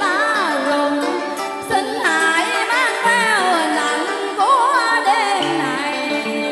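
Vietnamese duet music played loud over the stage speakers: a karaoke backing track carrying a bending, wavering melody line with vibrato.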